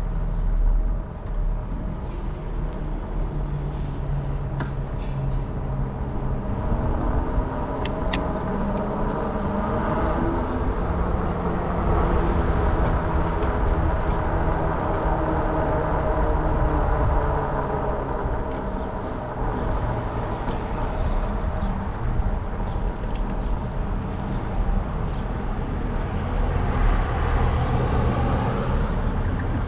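Fat-tire electric bike with a 750 W motor under way: a steady low rumble, and a whine that climbs in pitch about a quarter of the way in, holds for several seconds, then fades.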